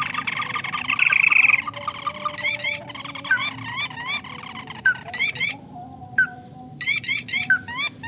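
Animal calls in a rice field: a dense run of calling at first, then many short, sharp rising calls in quick pairs and threes, over a steady high thin tone.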